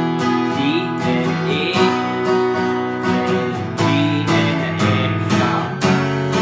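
Acoustic guitar strummed in a steady rhythm, capoed at the second fret, playing chord changes whose bass note steps down: G, G with F sharp in the bass, then E minor 7.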